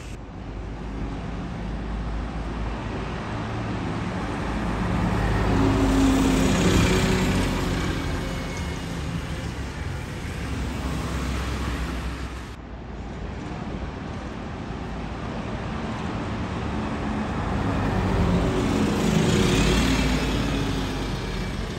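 Double-decker buses driving past at the roadside, engine and tyre noise swelling and fading as each goes by. It is loudest twice, about six seconds in and again near the end, as a bus passes close.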